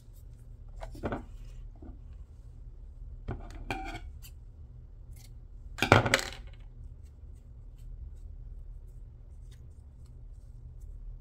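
Small craft supplies being handled and set down on a tabletop: a few short clatters and knocks, the loudest about six seconds in, over a steady low hum.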